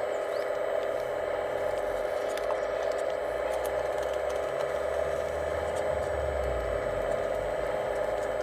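Hydraulic pump of a radio-controlled scale excavator running steadily with a whine, with a few light clicks and rattles as the arm and grapple move.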